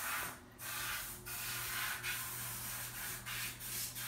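Rubbing, scraping noise in strokes of about a second with short breaks between them, over a faint steady low hum.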